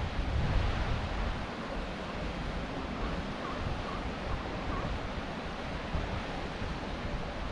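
Ocean surf washing against a rocky shoreline, a steady rush, with wind rumbling on the microphone, strongest in the first second.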